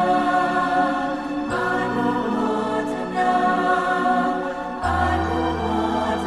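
Devotional background music with long held, choir-like chords that change about one and a half seconds in and again near five seconds.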